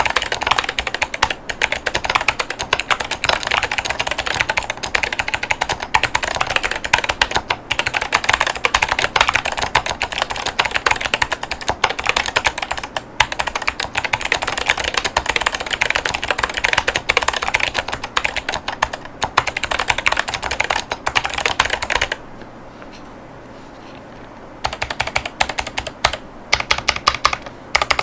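Fast, continuous typing on a mechanical keyboard with Kailh White Owl V2 clicky switches and ceramic keycaps: a dense stream of crisp clicks and clacks. The typing stops for a couple of seconds near the end, then picks up again.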